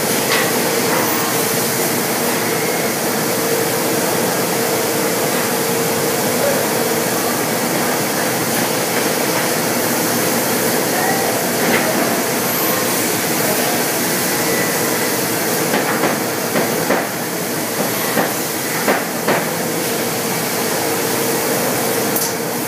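Pade CNC machining center cutting solid wood: a loud, steady noise of the spindle and cutter working, with a steady whine that drops out about halfway and comes back near the end. Several short knocks come in the last few seconds as the head moves and cuts.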